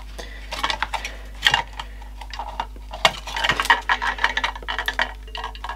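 Plastic casing and snap clips of a Dyson V7 battery pack clicking and creaking as it is prised apart by hand: a string of small irregular clicks, with the clips still holding.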